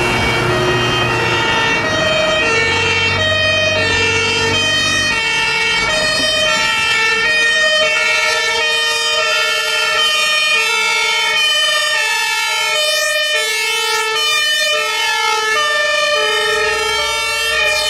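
German two-tone fire-engine siren (Martinhorn) sounding its alternating high-low sequence, with more than one siren going out of step. A truck engine rumbles underneath at first and again near the end.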